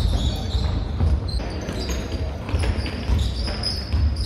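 Basketball game on a hardwood court: the ball bouncing and players' shoes on the floor, with repeated thumps and brief high squeaks.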